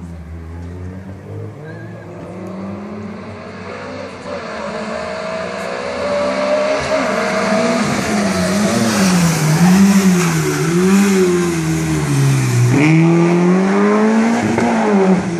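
Rally car engine revving hard as it approaches and passes. The engine grows louder over the first several seconds, then its pitch rises and falls about once a second with throttle and gear changes, drops sharply once and climbs again, and falls away near the end.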